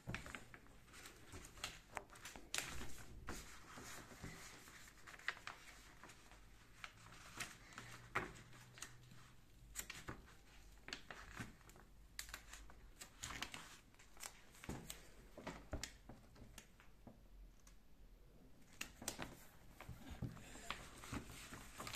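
Faint, scattered rustling and crinkling of paper as Panini stickers are peeled from their backing sheets and pressed onto a large paper poster, with small irregular clicks and taps.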